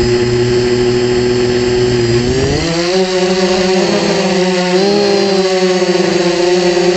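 ZMR250 racing quadcopter's brushless motors and propellers whining at a steady, even pitch while it sits on the ground. About two seconds in they throttle up for lift-off, and the pitch rises, then wavers up and down with the throttle in flight.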